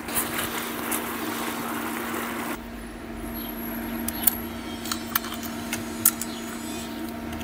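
Risotto cooking in fish broth in a pan, an even hiss over a constant low hum, which stops abruptly about two and a half seconds in. A few light clicks of kitchen utensils follow.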